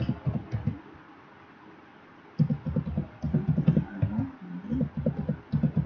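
Typing on a computer keyboard: rapid keystrokes in two runs, with a pause of about a second and a half between them about a second in.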